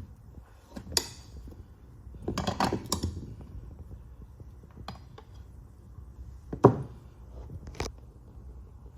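Small steel tire irons clinking and scraping against a 10-inch dirtbike wheel rim while levering a stiff tire bead on. A few sharp metal clinks, a short rattling scrape a couple of seconds in, and the loudest knock about two-thirds of the way through.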